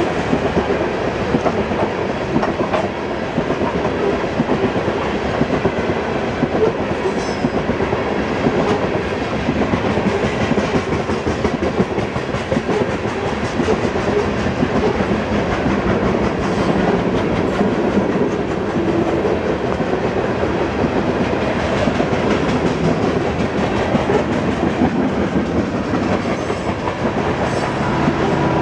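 Loaded coal cars of a freight train rolling past at track side: a steady, loud rumble of steel wheels on rail, with a rapid clickety-clack from the wheels crossing the rail joints.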